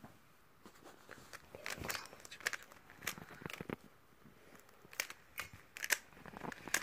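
A 3x3 speed cube being scrambled by hand: quick, irregular plastic clicks and rattles as its layers are twisted back and forth.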